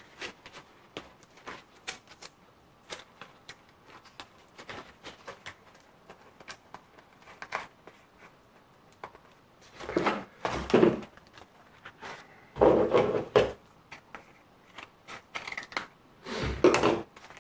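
Paper being handled and taped with masking tape: scattered light rustles and taps, with three louder rasping handling noises, each about a second long, in the second half.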